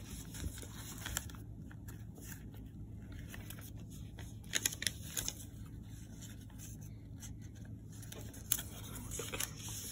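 Shiny foil-like origami paper being folded and creased by hand: faint rustling and crinkling, with a few sharp crackles about halfway through and again near the end, over a low steady hum.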